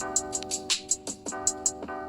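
Background music: sustained plucked-string and keyboard chords over a light, steady percussion beat.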